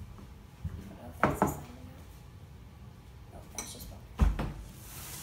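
Bowls knocking against each other and the table as they are handled: a pair of sharp knocks about a second in and two more past the middle, the last the loudest.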